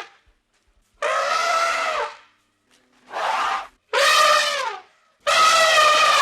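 An animal calling four times: loud, high-pitched calls, each about a second long, with short silences between them.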